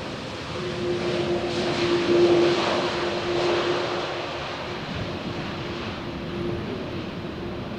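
Airliner landing: engine noise with a steady held tone, rising to its loudest about two seconds in and then easing off.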